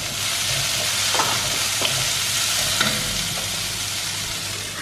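Chopped green beans sizzling in hot coconut oil in a pan as they are stirred, with a few soft knocks of the stirring.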